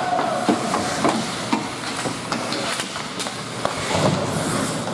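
Ice hockey play on the rink: a steady hiss of skates on the ice with scattered sharp clacks of sticks and puck.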